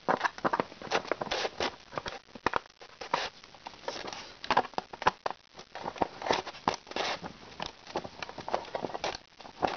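Irregular scraping, clicking and crackling of a hand-held screwdriver working a stubborn screw out of a diecast model's plastic base, rubbing against the styrofoam packing block it sits in.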